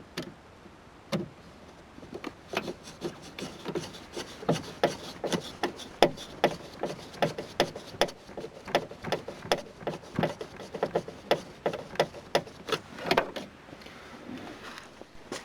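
A #12 one-inch sheet metal screw being driven in by hand to hold the replacement inside door handle: a long run of sharp, irregular clicks, a few a second, from about two seconds in until shortly before the end.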